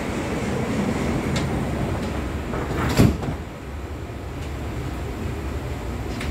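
Sliding passenger doors of an SMRT C151C train closing, shutting with one loud thud about three seconds in; the carriage is a little quieter after.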